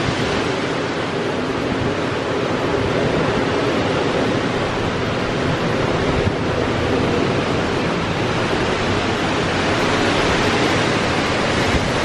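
Hurricane wind blowing hard and steadily, driving rain across the street, with the gusts rumbling on the microphone.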